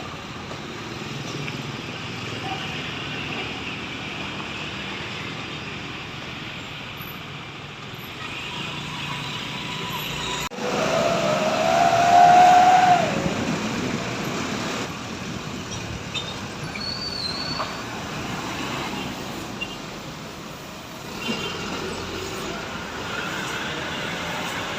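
Roadside traffic noise from passing buses. About halfway through, a bus horn sounds for about two seconds, wavering slightly in pitch; it is the loudest sound.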